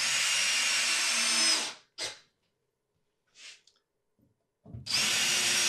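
Cordless drill/driver driving screws through a steel table leg's mounting plate into a hard maple tabletop: a steady motor whine for about two seconds, a short blip of the trigger, then a second run starting near the end.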